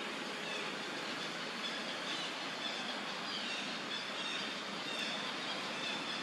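Steady outdoor background noise, an even hiss, with faint short high chirps now and then.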